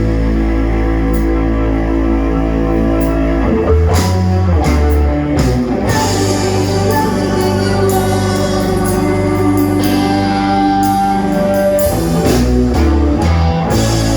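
Live rock band playing: sustained guitar chords over a drum kit, with the harmony changing about four seconds in and again near the end.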